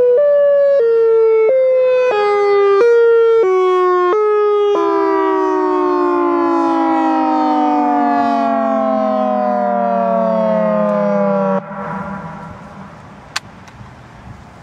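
Emergency alert siren tone: alternating high and low tones stepping down in pitch, then one long falling tone that cuts off suddenly about eleven seconds in. Faint hiss and a single click follow.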